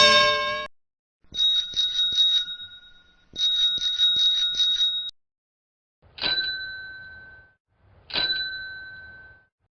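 A small two-tone metal bell rung twice with a rapid rattling trill, then struck twice as single dings that ring out and fade.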